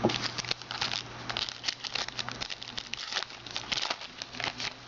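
Glossy trading cards being handled and flipped through by hand: a quick run of light clicks and rustles as cards slide over one another.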